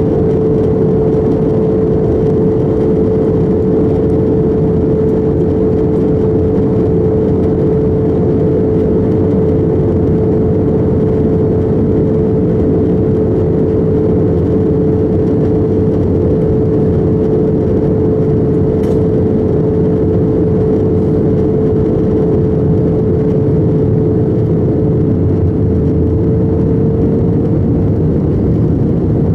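Steady cabin noise inside an Airbus A321 in flight: the engines and rushing air make a constant loud roar, with a steady humming tone on top.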